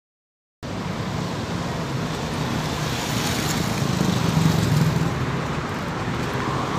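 Road traffic noise, with a low engine hum under a steady rush, starting about half a second in and swelling briefly around four and a half seconds in.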